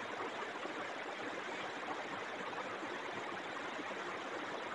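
Steady faint hiss of background noise, with no distinct sounds in it.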